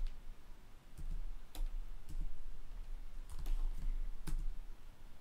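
Computer keyboard keys and mouse buttons clicking, about six short separate taps spread over a few seconds, above a low steady hum.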